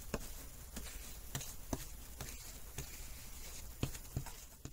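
Flux brush dabbing flux onto the copper-foiled seams of a stained-glass panel: light, irregular taps and ticks over a low steady hum.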